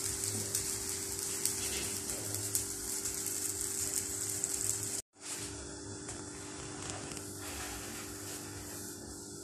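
Pancake batter sizzling in a lightly oiled non-stick frying pan, a steady crackling hiss with a low hum underneath. The sound cuts out for an instant about five seconds in and comes back quieter.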